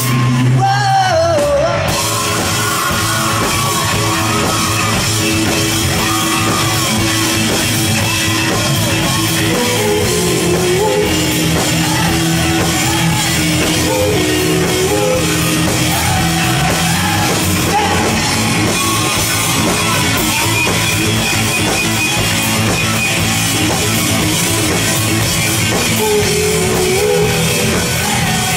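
Live rock band playing at full volume, with drum kit, guitars and a sung vocal line.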